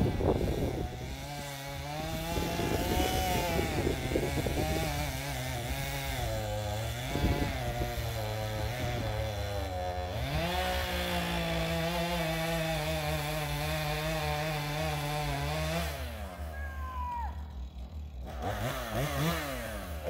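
Gas chainsaw running as it cuts into a standing tree's trunk, its engine pitch sagging and rising under load. About sixteen seconds in it drops off, then revs up and down a few times.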